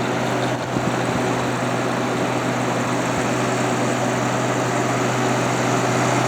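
Haier 10,000 BTU window air conditioner running with its condenser fan blowing hard at about 1450 RPM: a steady rush of air over a strong low hum.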